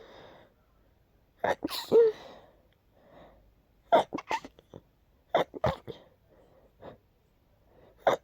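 A person sneezing repeatedly. One full sneeze comes about one and a half seconds in, followed by quick clusters of short, sharp sneezes around four and five and a half seconds in, with faint breaths between.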